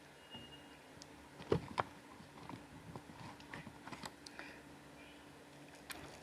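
Quiet close-up eating sounds of a person starting on a masala chicken leg piece: scattered small clicks and wet smacks of handling and biting, with two sharper clicks about a second and a half in.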